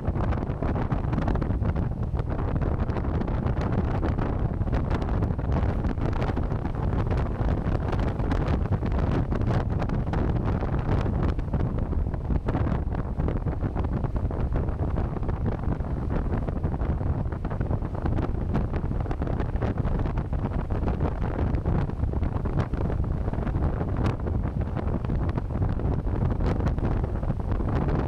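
Wind blasting the microphone on a moving Zero SR electric motorcycle: a steady, loud rush of wind noise, heaviest in the low end.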